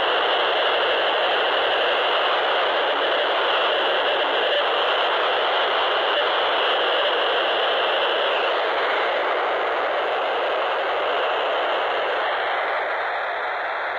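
POCSAG digital paging data on 26.745 MHz FM, heard through the speaker of a PNI Escort HP 82 handheld CB radio as a steady, noisy buzz.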